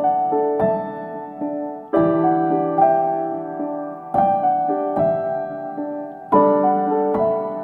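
Background piano music: slow, gentle chords struck about every two seconds, each ringing out and fading, with single notes in between.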